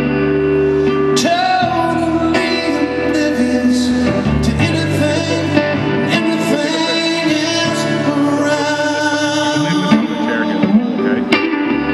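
Live rock band music: a man singing a melodic line over an archtop electric guitar played through a tube combo amplifier, with sustained low bass notes that change every couple of seconds.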